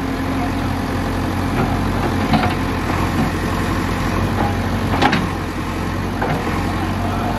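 Diesel engine of a JCB 3DX backhoe loader running steadily at idle, with two short knocks a couple of seconds apart.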